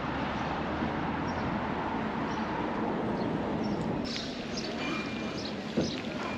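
Outdoor town ambience: a steady wash of background noise, with small birds chirping in short high bursts from about four seconds in and a single sharp knock near the end.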